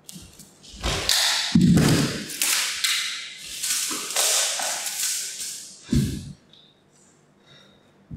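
A barefoot performer moving on a studio floor: heavy thuds of feet and body about a second in, near two seconds and again near six seconds, with scraping and rustling noise between them as he slides low across the floor among paper sheets.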